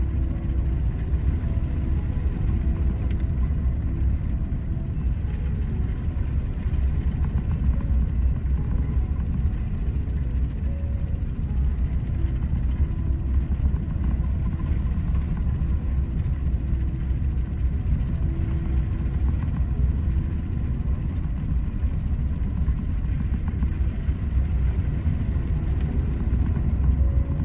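Storm wind and heavy seas on a tanker's deck: a steady, deep rumble that wavers with the gusts, with faint whistling tones coming and going.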